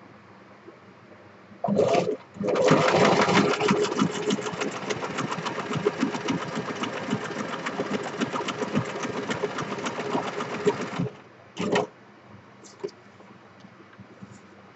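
Domestic electric sewing machine stitching through paper card: a short burst about two seconds in, then a steady run of rapid needle strokes for about eight seconds that stops suddenly, followed by one more brief burst.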